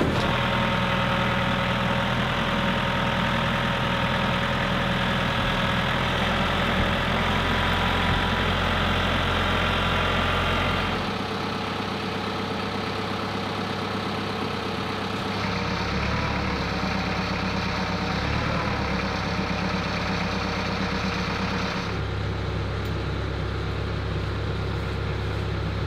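Compact tractor engine running steadily at a low, even speed. Its tone shifts about 11 seconds in and again around 15 and 22 seconds.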